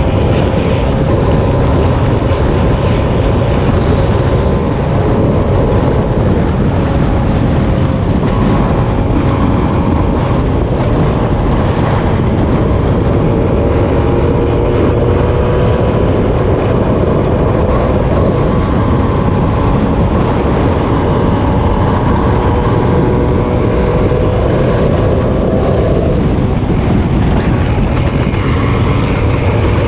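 Vehicle engine running steadily at road speed under heavy wind buffeting on the microphone, the engine note dropping slightly near the end.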